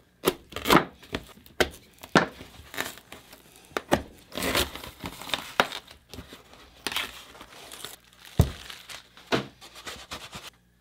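Plastic end cap being pried and worked off a cardboard mailing tube, with irregular crinkling, scraping and clicking as it comes loose and the packing inside is disturbed. A dull knock about eight seconds in.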